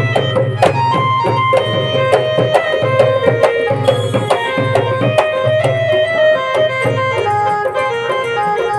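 Instrumental qawwali passage: a dholak (two-headed barrel drum) beaten in quick, steady strokes under a melody of held notes that steps up and down over a low drone.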